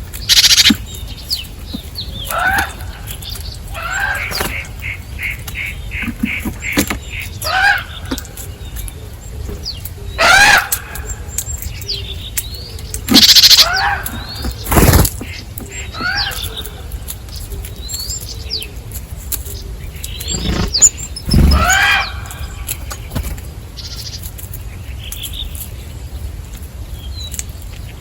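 Birds calling at a garden feeder: repeated short calls sliding down in pitch, a quick run of evenly spaced notes about five seconds in, and several loud brief noisy bursts scattered through.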